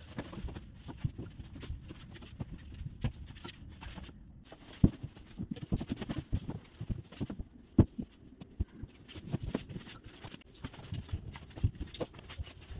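Bedding being handled as a bed is straightened and a blanket folded: irregular soft thumps, pats and rustles, with two sharper knocks about five and eight seconds in.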